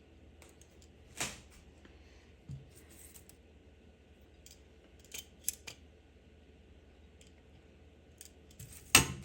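Scattered clicks and clinks of kitchen utensils against a plate as food is arranged on it, with a louder sharp knock near the end.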